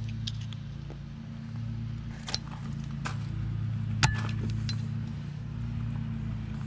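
Scattered sharp metal clicks and clinks, the loudest about four seconds in, as a steel screwdriver prises back the locking tabs of the tab washer on a MerCruiser sterndrive propeller nut. A steady low hum runs underneath.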